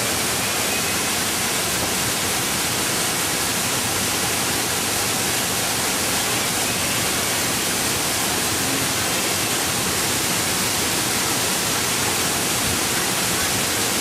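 Loud, steady rush of a waterfall's falling water, heard from right behind the curtain of water.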